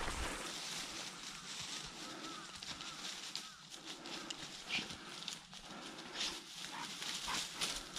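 Footsteps and rustling through dry silver grass, with a pointer dog panting and sniffing as it works a scent.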